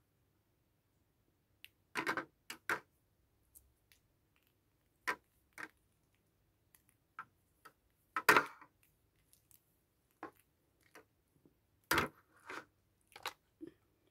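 Scattered light clicks and brief rustles as wired in-ear earphones and their cable are handled and lifted from their packaging, with quiet gaps between; the loudest knocks come about two, eight and twelve seconds in.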